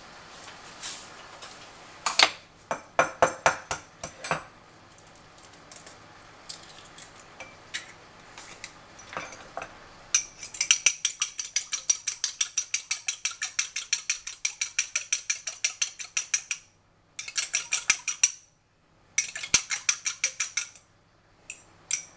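A fork beating an egg in a small bowl: quick, even clinks against the bowl at about five a second, starting about ten seconds in, with two short pauses. Before that, a scattered run of light taps and clicks.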